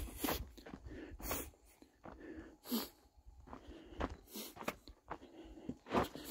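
A hiker's footsteps on a dry dirt and gravel trail, uneven steps about once a second.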